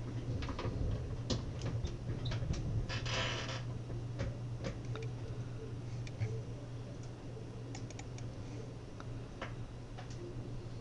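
Scattered faint clicks and ticks, with a short rustle about three seconds in, over a steady low hum: small handling noises of someone sitting at a computer.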